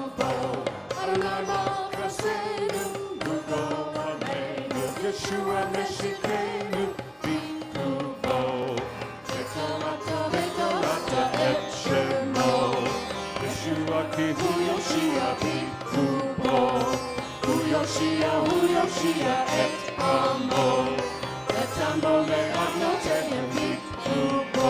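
Live worship band music: a melodic passage over percussion.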